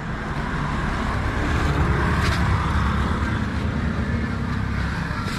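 Road traffic: a motor vehicle's engine drones past, swelling to its loudest about two seconds in and then easing off.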